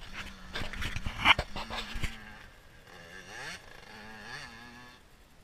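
Dirt bike engine running at a steady low pitch, rising and falling in pitch about three seconds in as it is revved. Wind buffeting and knocks on the microphone fill the first two seconds, loudest just over a second in.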